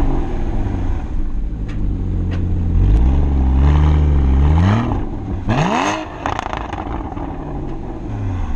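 Porsche Boxster Spyder's 3.8-litre flat-six and exhaust under hard driving: the revs climb and hold high, drop, then sweep up quickly about halfway through, with a few sharp cracks, before settling lower and rising again near the end.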